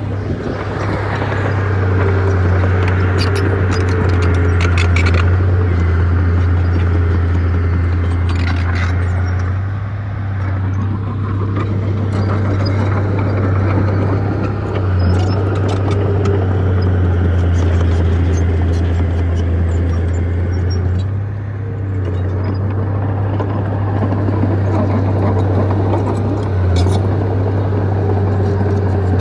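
Crawler bulldozer's diesel engine running steadily with a deep drone, with short bursts of clatter a few times.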